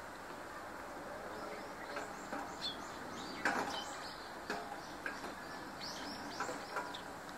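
Eurasian tree sparrows chirping: a string of short, sharp chirps that starts about two seconds in, over steady background noise.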